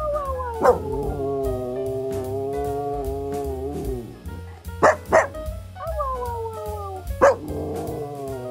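A dog howling with its muzzle raised: one long howl that slides down in pitch and then holds, followed by a few short sharp yips and another falling howl, over background music with a steady beat.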